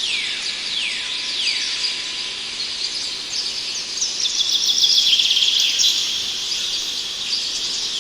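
Wild birds singing: clear whistled notes that slide downward, repeated every second or so, with a fast, high trill in the middle. A steady high hiss runs underneath.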